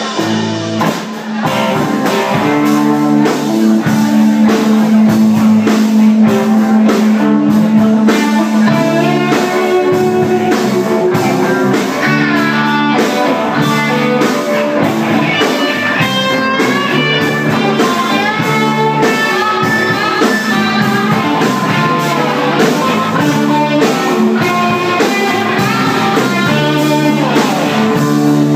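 A live band playing a song, with guitar over a drum kit.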